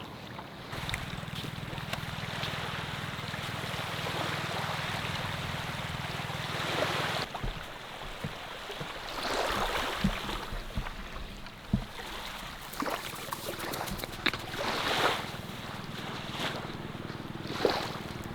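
Sea waves washing in on the shore, surging louder several times, with a low steady hum under the first several seconds.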